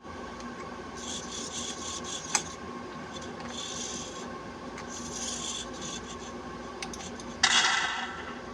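Sound effects from a model tank's small onboard speaker, played by an Adafruit sound board: a steady engine-like hum with raspy bursts coming and going, a sharp click, and a sudden louder burst near the end that fades out.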